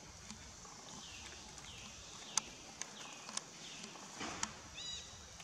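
Baby monkey giving short high squeaks that fall in pitch, about four of them over a few seconds, then a quick run of rising chirps near the end, while begging for milk; sharp clicks and taps are mixed in.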